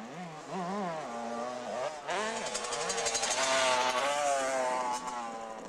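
80cc two-stroke motocross bike engines revving, their pitch repeatedly rising and falling with throttle and gear changes. The sound grows louder about two seconds in and eases off near five seconds.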